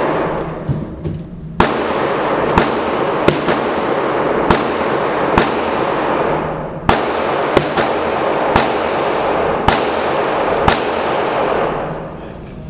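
A string of about ten gunshots, unevenly spaced roughly a second apart, each followed by a long echo in an indoor shooting range.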